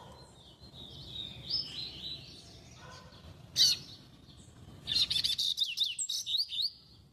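A bird singing: a warbling phrase over the first couple of seconds, a single sharp, loud note about three and a half seconds in, then a quick run of high notes near the end.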